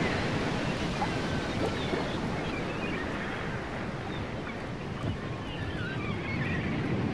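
Steady rushing outdoor ambience noise, with a few faint high chirps now and then.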